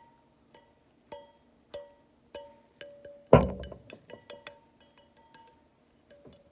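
The flared bell (trumpet) of an air horn being clinked, ringing like a small bell. Taps come about one every half second, then faster after a louder knock near the middle, and each leaves a short ringing tone.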